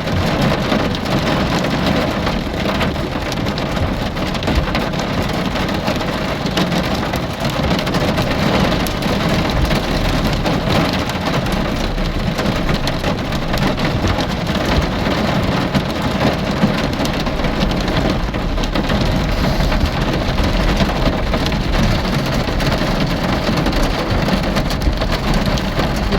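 Steady heavy rain falling and pattering on a surface, a dense even hiss with many small drop impacts.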